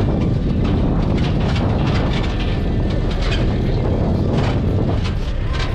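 Mazda light truck driving over a rough dirt road, heard from on board: a loud, steady rumble of engine and road noise with frequent rattles and knocks from the bouncing vehicle.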